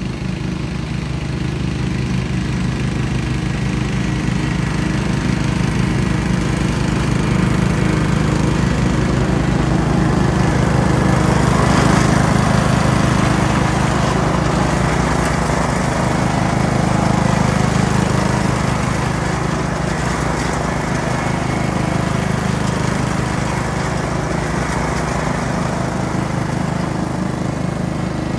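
Simplicity Coronet rear-engine riding mower running steadily. It grows louder as it passes close about halfway through, then fades as it drives away.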